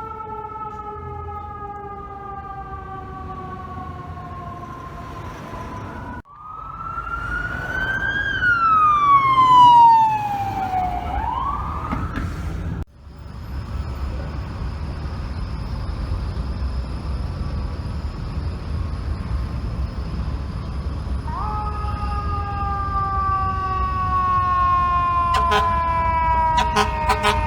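Fire truck sirens: a long siren tone slowly falling in pitch, then a siren wailing up and down, loudest as it swings high then low, then another long slowly falling siren tone. Short horn blasts start near the end.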